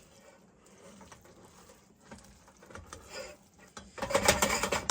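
A spatula or spoon stirring vegetables into rice in a pan, faint at first, then a quick run of loud clacking and scraping strokes near the end.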